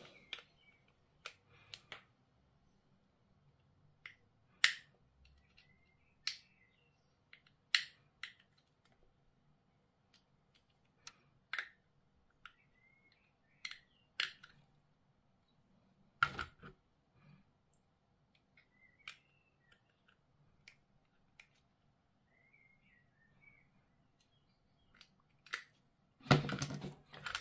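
Small sharp clicks and taps of hard plastic model-kit parts being handled and pressed together by hand, scattered irregularly with gaps between them, and a louder rustle near the end.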